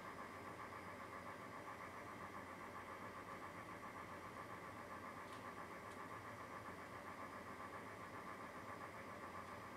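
A steady mechanical drone with a fast, even flutter, like a motor running; two faint ticks come about halfway through.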